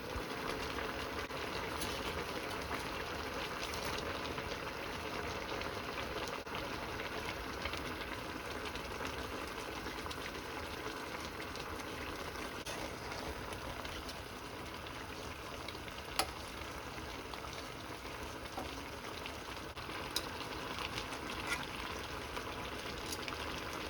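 Spicy chicken stew (dakdoritang) bubbling and sizzling steadily as it boils down in a pot, with a few light clicks.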